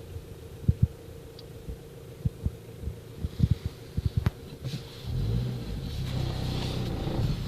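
Low gusty thumps of wind buffeting the microphone, then about five seconds in a motor's steady pitched rumble rises and holds.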